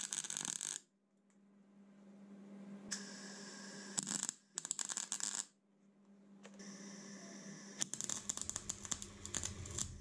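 MIG welder arc crackling and spitting as it tack-welds mild steel plates, in four separate bursts. The last burst is the longest, about two seconds.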